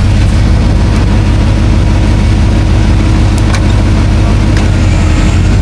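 Off-road vehicle engine running steadily and loudly close by, with a few faint clicks about three and a half seconds in.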